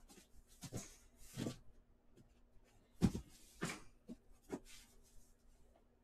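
A few soft, irregular knocks and rustles of handling, the loudest a thump about three seconds in, over a faint steady low hum.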